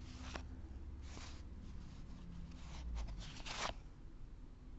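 Loose baseball cards being handled and slid one over another while they are counted: a few soft paper rustles and swishes, the clearest about three and a half seconds in, over a low room hum.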